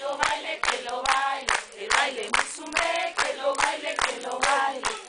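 A group of women singing a campfire action song together in chorus, with a sharp beat about two and a half times a second.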